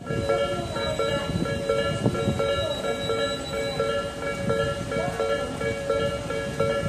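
Japanese railway level-crossing warning alarm ringing, an even repeating alternation of two electronic tones. A train's running noise rumbles underneath.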